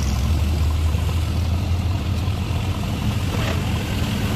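Off-road jeep's engine running steadily with a low drone as the vehicle wades through floodwater, with the rush of water pushed aside by the wheels.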